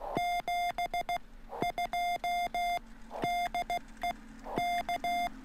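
Morse code (CW) from an amateur radio transceiver: a steady beep near 700 Hz keyed on and off in quick dits and dahs.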